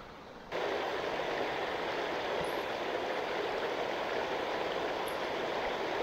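Water running steadily along a narrow stone channel, starting abruptly about half a second in.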